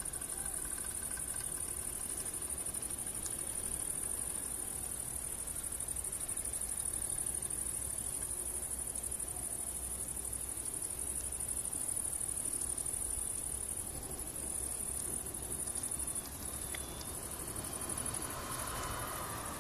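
Crickets chirping: a steady, high-pitched, rapidly pulsing trill.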